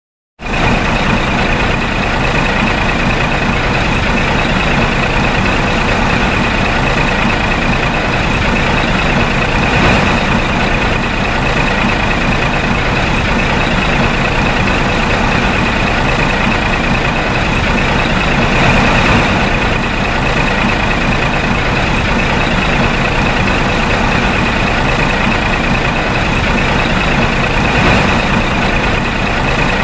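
Heavy dump truck engine running steadily, with a constant high whine over it and a few slight swells. It starts abruptly about half a second in.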